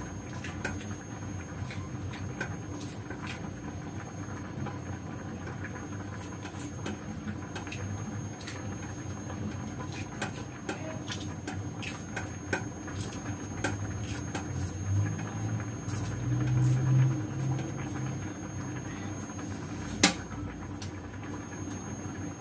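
Vegetables being cut and handled at a kitchen counter: a run of light clicks and scrapes over a faint steady hum, with one sharper click near the end.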